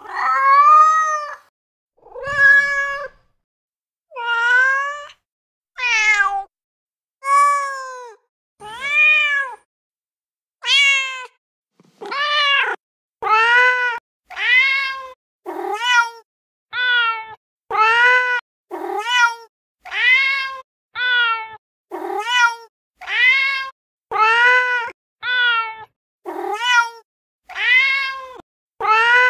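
Recorded domestic cat meows played one after another from a phone cat-sound app: about two dozen separate meows, each rising then falling in pitch. They come about every second and a half at first, then a little under one a second from midway on.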